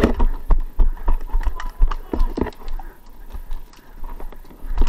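Footsteps on gravelly dirt at a brisk walk, about two to three steps a second, with knocks and rumble from the jostled body-worn camera.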